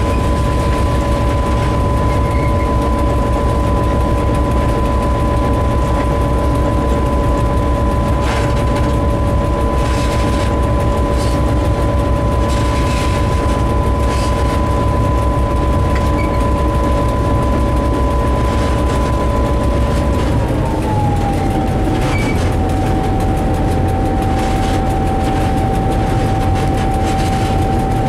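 Locomotive engine running, heard from inside the cab: a heavy low rumble with a steady whine that drops in pitch about twenty seconds in, the rumble easing at the same time. A few short clatters come through in the first half.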